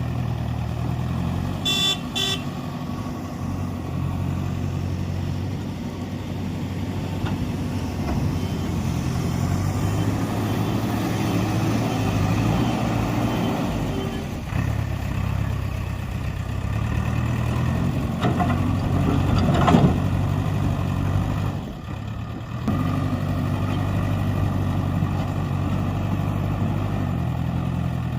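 Heavy diesel engines of construction machinery running under varying load, the engine note rising and falling as the machines work, with a brief horn toot about two seconds in.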